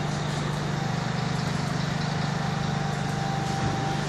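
A heavy engine idling steadily with an even, fast throb.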